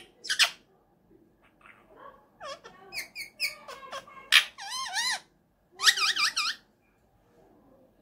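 Indian ringneck parakeet calling: two sharp screeches at the start, a run of short squeaky calls, then a loud screech followed by two longer wavering, warbled calls with a fast wobble in pitch.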